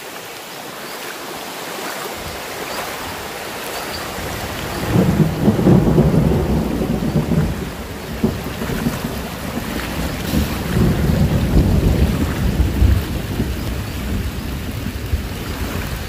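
Fast-flowing river water rushing and splashing around legs wading through it, close to the microphone. It grows louder, and from about five seconds in a deep, churning rumble sits under the hiss of the water.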